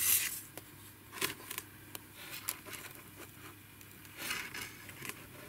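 Light handling noise: short scratchy rustles and a few clicks, near the start, about a second in, and again around four seconds in.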